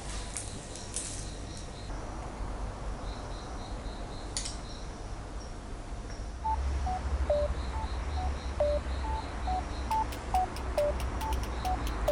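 Laid-back background music: short plucked melody notes stepping up and down, with a bass coming in about halfway through and quick light ticks near the end.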